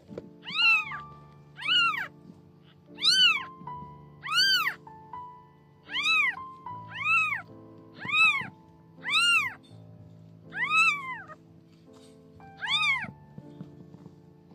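Newborn kitten meowing over and over: about ten short, high-pitched cries roughly a second apart, each rising and then falling in pitch, with a pause of a couple of seconds near the end. Soft background music with held notes plays underneath.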